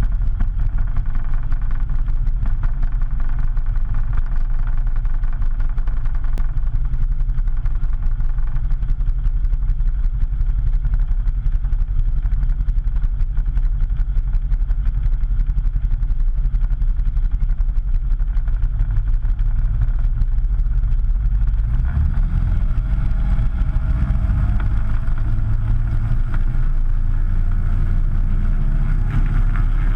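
Kitfox IV floatplane's engine and propeller running steadily, the engine note shifting about two-thirds of the way through as the throttle changes.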